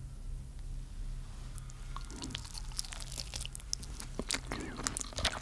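A low steady hum, then from about two seconds in, close-up crackling and crunching of a baked grated zucchini-and-potato cake's crisp crust: many quick sharp clicks that grow denser toward the end.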